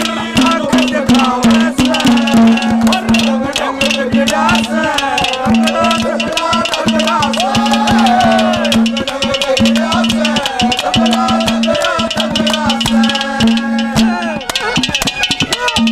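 Instrumental stretch of a live Haryanvi ragni: a harmonium holds a steady drone while a gliding melody line wanders above it, over fast, busy hand percussion.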